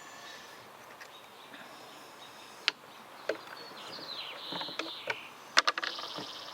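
A few scattered sharp metallic clicks from a chain rivet spinner being turned as it spreads the rivet head on a chainsaw chain's master link, the loudest a little after five seconds in. Birds chirp and an insect buzzes in the background.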